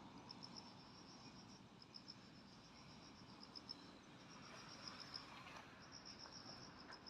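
Crickets chirping faintly in short, rapid pulse trains that repeat one after another.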